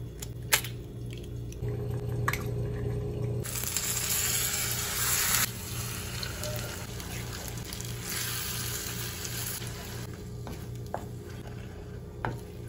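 An egg cracked against a bowl, heard as two sharp taps in the first couple of seconds. Then eggs are poured onto chopped onions frying in a nonstick pan, with loud sizzling from about three seconds in, and are stirred as they cook.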